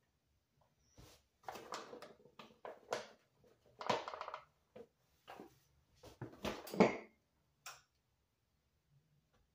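Plastic cookie cutter and hands working pumpkin dough on a floured countertop. The cutter is pressed, tapped and scraped, giving a string of short knocks and scraping rustles, the loudest about two-thirds through.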